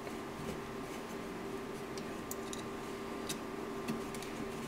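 A few faint, light clicks and ticks of an Allen key turning the long extruder screws out of a 3D printer's extruder assembly, over a steady low hum.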